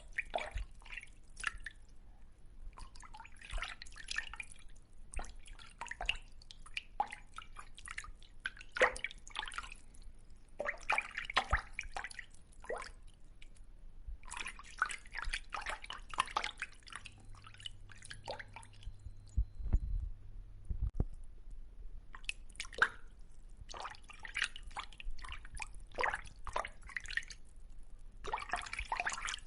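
Water dripping and splashing in irregular bursts of crackly droplets, each lasting up to a couple of seconds with short pauses between. A couple of low thumps come about two-thirds of the way through.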